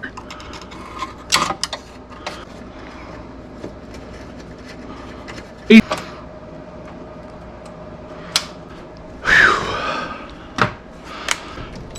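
Intermittent clicks and knocks of hand tools and small latch parts being handled while working on a car's hood latch cable. The loudest knock comes about halfway through, and a brief scraping or vocal sound follows near the end.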